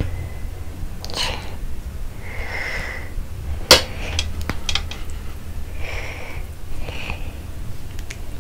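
A plastic ketchup squeeze bottle squirting in a couple of short sputtering hisses, then a sharp knock a little under halfway through as it is set down, followed by a few light clicks and soft breathy sounds.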